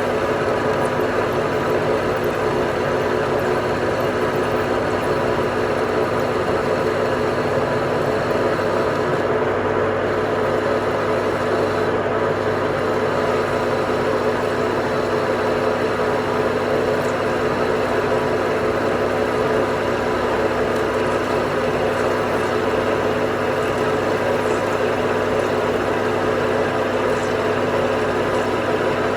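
A motor-driven machine running steadily with a constant hum, its pitch and loudness unchanging.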